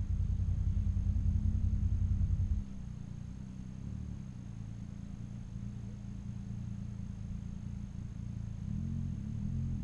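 Motorcycle engines running, heard muffled and low. The close, loud engine cuts off abruptly about two and a half seconds in, leaving a quieter rumble of another motorcycle approaching that grows louder near the end.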